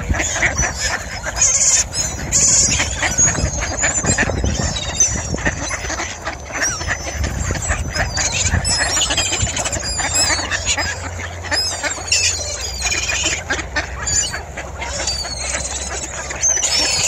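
A flock of mallard ducks quacking and jostling as they crowd in to feed, with gulls calling overhead.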